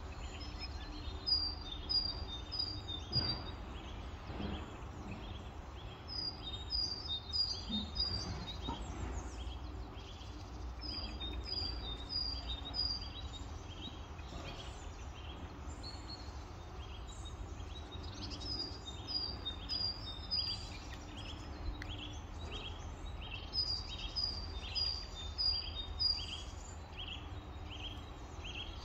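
Songbirds singing outdoors: a short phrase of four or five high, even chirps repeats every few seconds, with softer chirps between, over a steady low rumble of background noise.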